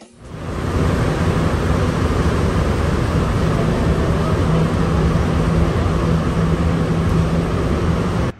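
Interior sound of a rubber-tyred Montreal Metro car running: a loud, steady rumble with a low, steady hum. It comes in over the first second and cuts off suddenly near the end.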